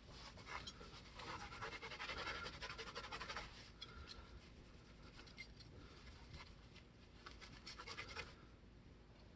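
Faint, dense scratching and rubbing of small guitar hardware being handled and fitted, busiest in the first few seconds and fading out near the end.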